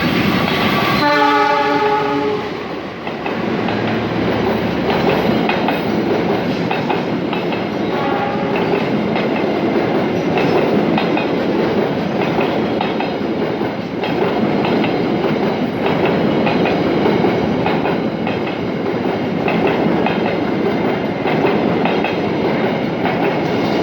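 A train passing: its horn sounds once, briefly, about a second in, then the wheels rumble and clatter steadily over the rails as the carriages roll past.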